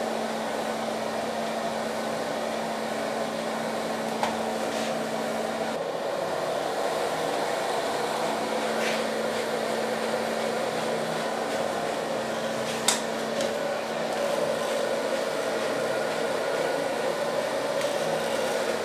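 Handheld hair dryer blowing steadily with a low hum under the airflow. There are a few brief ticks, the sharpest about thirteen seconds in.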